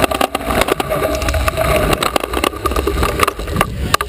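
Stunt scooter wheels rolling fast over concrete and plywood ramps, heard close up: a continuous rolling rumble with repeated clacks and rattles, and a sharp knock near the end.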